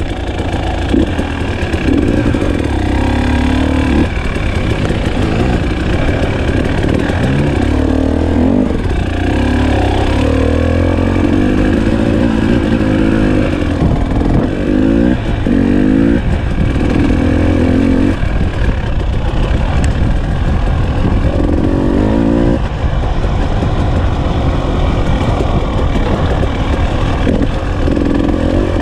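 KTM 300 XC-W TPI's fuel-injected single-cylinder two-stroke engine under a riding load, revving up and dropping back over and over as the throttle is worked, a rise every second or two.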